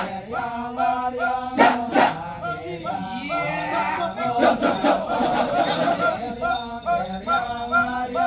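Kecak chorus of many male voices chanting together, with phrases stepping up and down in pitch over a low held tone. Two sharp hits cut through about two seconds in.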